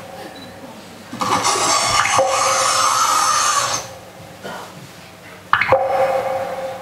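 Sound effects accompanying a mime act. A bell-like ringing tone is struck about five and a half seconds in and rings on. Before it, a loud hissing rush swells at about a second in and cuts off abruptly near four seconds.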